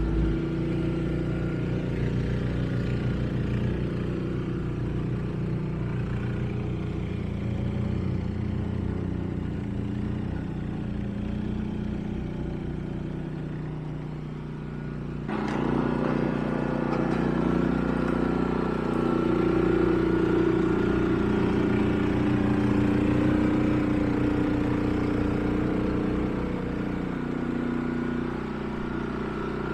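Honda HSM1390i snowblower's single-cylinder iGX390 petrol engine running steadily while clearing snow. About halfway through it gets suddenly louder and brighter and stays that way.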